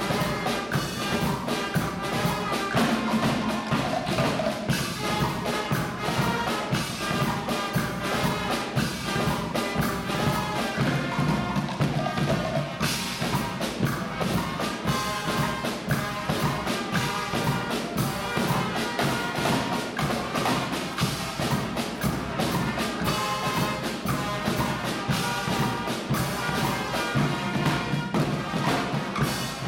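Guggenmusik brass band playing live: trumpets and trombones over bass drum and snare drums keeping a steady beat.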